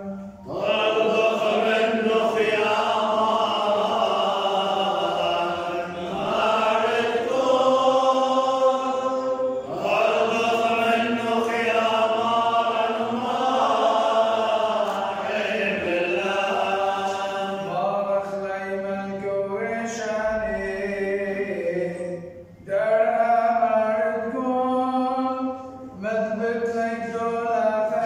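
A priest's voice chanting a madrasha, an Eastern Syriac liturgical hymn, in long sustained phrases with brief pauses between.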